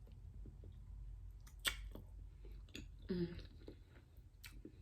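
Close-miked chewing of a sauce-dipped boiled egg: soft wet mouth sounds with scattered clicks, the sharpest about one and a half seconds in.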